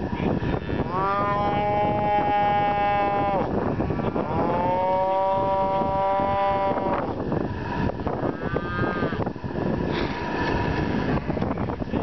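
A calf bawling under a hot branding iron: two long calls of a few seconds each, then a shorter one a little later.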